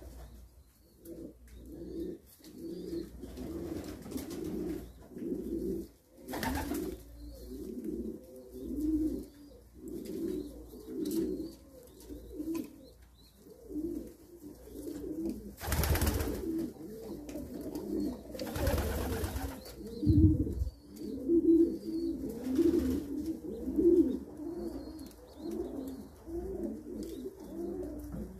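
Domestic pigeons cooing in low, repeated phrases, with faint high peeps from squabs begging as they are fed. A few brief rustling noises break in, the loudest about halfway through.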